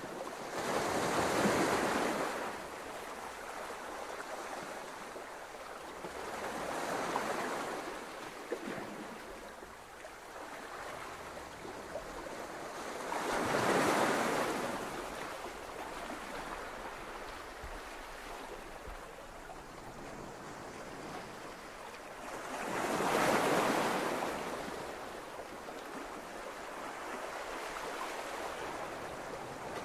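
Ocean surf: waves washing onto a shore, the noise swelling and falling away four times, roughly every six to ten seconds.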